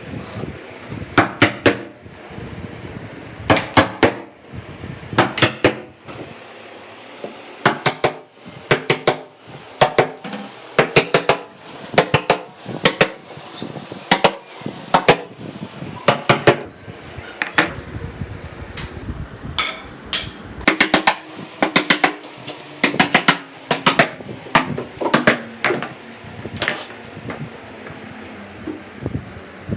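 Hammer striking in quick groups of two to four blows, repeated every second or two, each group followed by a brief ring.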